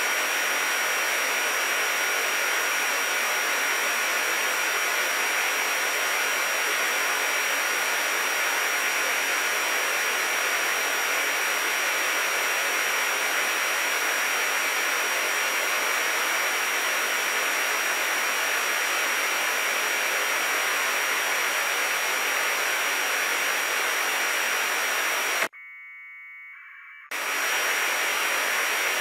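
Steady hiss of an FM receiver with its squelch open, from an RTL2832 SDR dongle tuned to the 145.825 MHz APRS channel. About 25 seconds in, the hiss cuts out suddenly for about a second and a half as a signal comes in, carrying faint AFSK data tones: an APRS packet being received.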